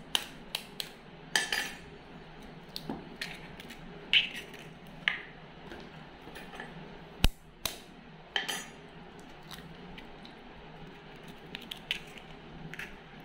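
Eggs being cracked and dropped into a stainless-steel mixer-grinder jar: scattered light taps and clinks of shell and hands against the steel, with one sharp click about seven seconds in.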